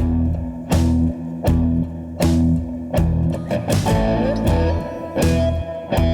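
Background music: guitar-led rock track with a steady drum beat.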